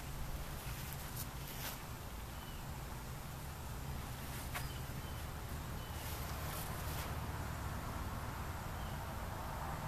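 Outdoor ambience: a steady low rumble with a few faint high chirps and several soft clicks or rustles.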